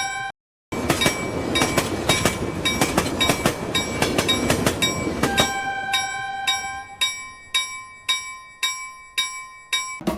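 Toy electric bullet train running on its track: a rattling whir with many small clicks, dropping out briefly near the start. About halfway the running noise fades and a ringing electronic bell sound dings about three times a second.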